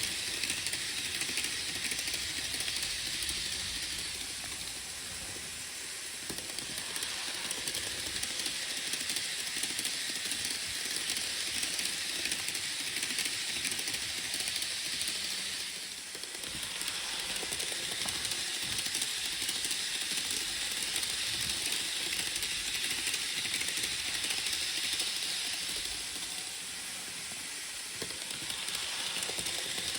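Model train running around the layout: a steady hissing rattle of wheels on the track and the motor, fading a little and coming back about every ten seconds as it circles.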